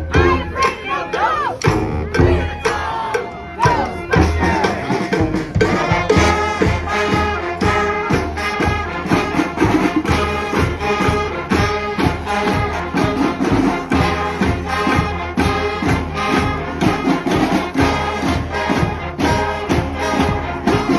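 Street brass band of horns and drums playing a tune over a steady drum beat, the horns swelling to a fuller ensemble about six seconds in.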